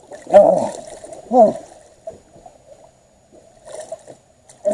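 Two short falling groans of effort from a man straining to land a large blue catfish at the boat's side, about half a second and a second and a half in. Near the end the fish splashes briefly at the surface.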